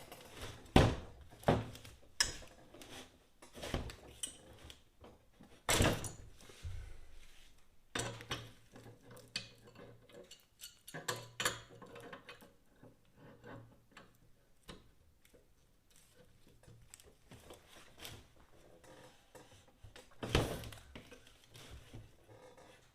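Irregular metal knocks and clatter of hand tools working a stuck bicycle bottom bracket. The sharpest knocks come about a second in, around six seconds in and near the end.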